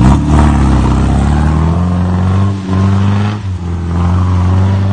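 Vintage car's engine revving hard as the open tourer pulls away up a muddy trial section, its revs climbing, dipping briefly about two-thirds of the way through, then holding steady.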